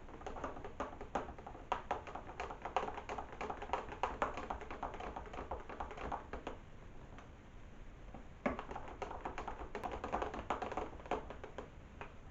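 Rapid, irregular tapping and clicking of hard kitchen items being handled, in two runs with a pause of about two seconds between them.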